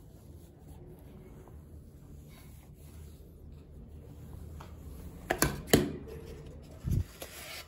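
Faint rubbing of hands pressing styrofoam sheets over a pipe to bend them into an airfoil curve. A little past five seconds come two or three sharp knocks as the pipe is moved on the cutting mat, then a dull thump near the end.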